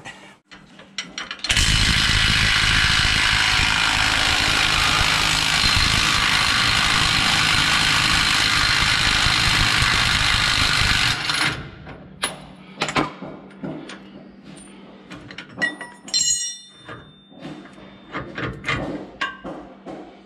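DeWalt 20V XR half-inch cordless impact wrench hammering for about ten seconds, starting a second and a half in, as it breaks loose a motorhome's rear shock absorber bolt at about the limit of what the tool can do. After it stops come scattered metallic clinks and knocks.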